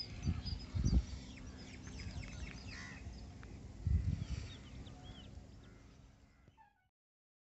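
Birds chirping and calling outdoors, with a few low thumps on the microphone and a faint steady hum underneath. The sound fades and cuts off to silence near the end.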